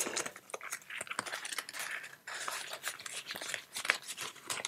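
Paper euro banknotes rustling and crinkling as they are handled, folded and slipped into a paper envelope, with many small clicks and taps.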